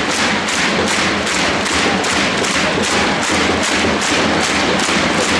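Stadium crowd of football supporters chanting in time with a steady drum beat and clapping, about two and a half beats a second.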